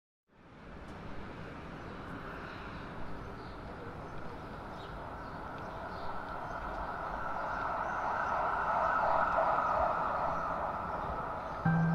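A steady rushing ambient noise fades in and slowly swells louder, with sustained musical notes entering right at the end.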